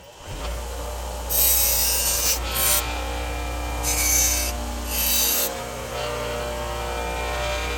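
An electric power tool starts up and runs steadily, with several loud rasping bursts as a piece of aluminium stair trim is pressed against it to shave it down.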